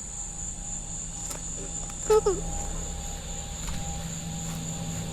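Crickets chirring in a steady high drone, with a short loud voice-like sound about two seconds in.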